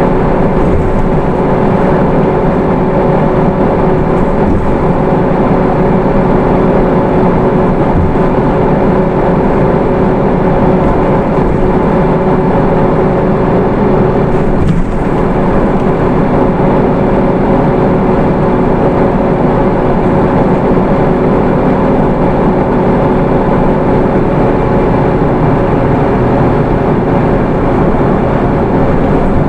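Hino Rainbow II (SDG-KR290J1) midsize bus's Isuzu 4HK1 four-cylinder diesel and automatic transmission running on the road. A steady drone with a whine held at a fixed pitch, as at an even cruising speed.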